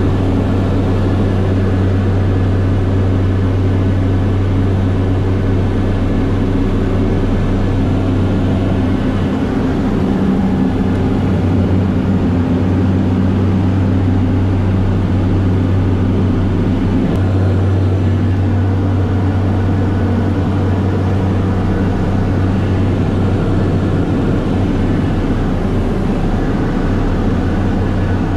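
Steady cockpit drone of a Cessna Conquest I's twin turboprop engines and propellers in flight, a strong low hum with steady higher tones. The tones shift slightly about a third of the way in and again a little past halfway.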